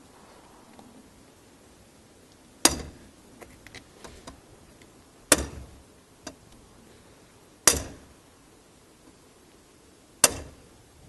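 A hammer striking an ABUS Ultimate steel bike lock four times, evenly about two and a half seconds apart, each blow a sharp metallic clang with a brief ring. The lock is being hammered to test whether it breaks.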